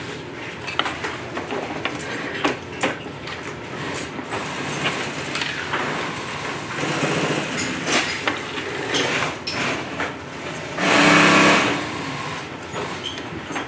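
Fabric rustling and small clicks and knocks of work at an industrial sewing machine, with a short, loud burst of an industrial sewing machine running, lasting under a second, near the end.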